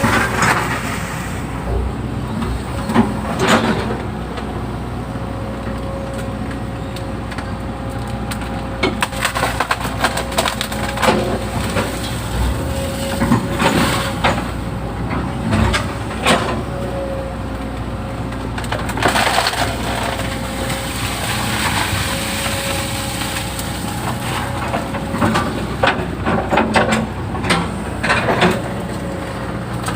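Excavator digging a ditch: its diesel engine runs steadily under a constant whine, while the bucket tears into the ground with repeated sharp cracking and snapping, most dense about a third of the way in and again near the end.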